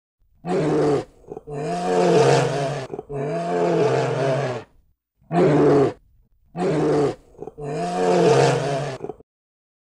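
Brown bear roaring: six drawn-out roars that rise and fall in pitch, in two similar groups of three, each a short roar followed by two longer ones.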